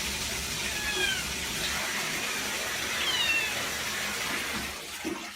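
A cat meowing twice, two short falling high-pitched mews, over a steady hiss.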